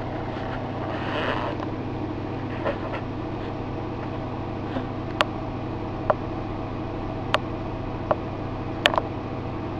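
Steady low mechanical hum with five sharp clicks, roughly a second apart, in the second half.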